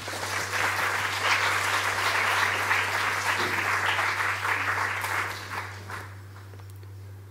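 Audience applauding, dying away about six seconds in.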